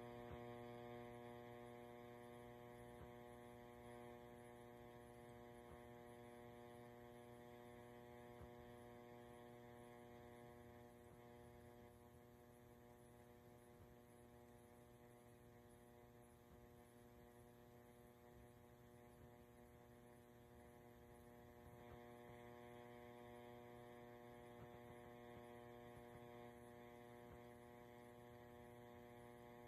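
Near silence, with a faint steady hum of one unchanging low pitch.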